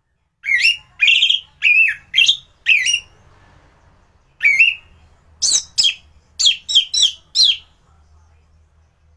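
An anis ground-thrush singing loudly in short, sweeping whistled notes: five in the first three seconds, then, after a pause of over a second, a quicker run of about eight more.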